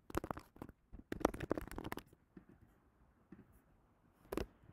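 Keys typed on a computer keyboard in two quick runs of clicks over the first two seconds, then a few faint ticks and a single louder click near the end.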